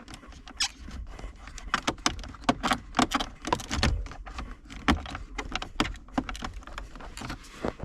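Stiff plastic interior trim panel being pried and wiggled loose with a panel removal tool against its retaining tabs: a run of irregular sharp clicks, snaps and knocks of plastic on plastic.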